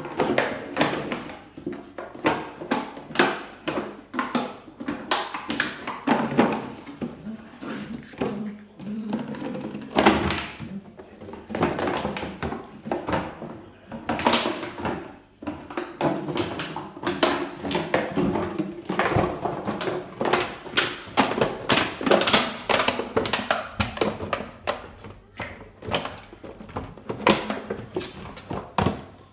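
Empty plastic water bottle crinkling, crackling and knocking on a tiled floor as a puppy bites and pushes it around. It makes a dense, uneven run of sharp clicks and rattles.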